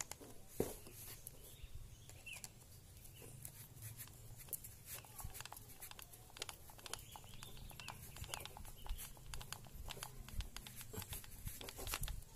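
Small scattered clicks and scrapes of a screwdriver turning the screws into the plastic rear end cap of a hand angle grinder, with the tool being handled.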